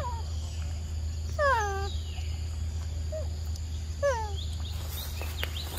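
Macaque calls: a short call falling in pitch about one and a half seconds in, a faint brief one near three seconds, and another short falling call near four seconds, over a steady low hum.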